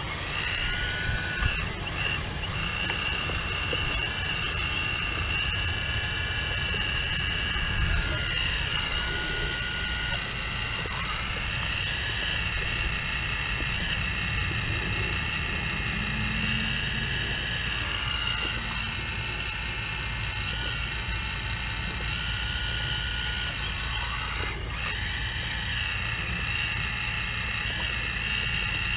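CAT 235 excavator at work: a steady high whine from its hydraulic drive over a low rumble. The whine dips and rises in pitch several times as the load changes with the digging movements.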